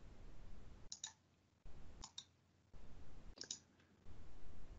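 Faint computer mouse clicks, a few short clicks spaced about a second apart, over a low background noise that comes and goes.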